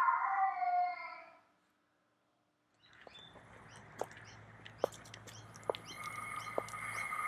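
A woman's voice trails off in the first second or so. After a short silence, outdoor ambience with birds chirping fades in, along with the heel taps of tall leather boots walking on pavement, about one step a second. Steady high tones join near the end.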